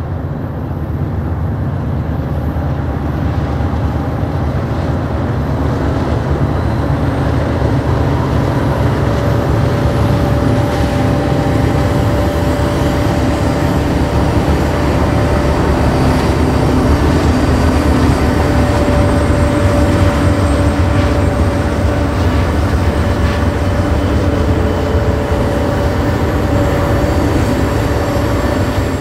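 Union Pacific diesel-electric freight locomotives running past at the head of a long train: a steady deep engine rumble with a steady whine over it, swelling as the units approach and loudest about two-thirds of the way through.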